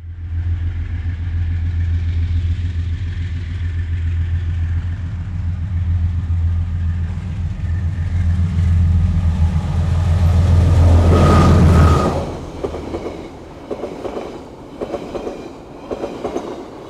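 Diesel locomotive of a passenger train coming out of a tunnel: a steady low engine drone that grows louder as it approaches and stops abruptly as the locomotive passes, about twelve seconds in, with a brief high tone just before. The carriages then roll by with irregular wheel clicks over the rails.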